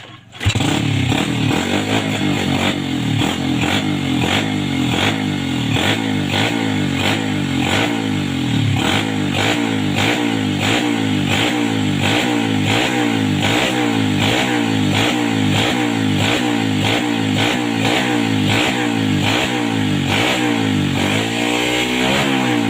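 2007 Yamaha Vega R's single-cylinder four-stroke engine catches about half a second in and then runs steadily. Its note wavers in a regular rhythm, and there is a short rev near the end. This is a test run after the carbon-fouled spark plug was cleaned and refitted.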